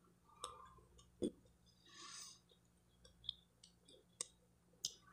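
Faint mouth clicks from the tongue and lips: about five short, sharp ticks spread over a few seconds, with one soft breath-like hiss about two seconds in.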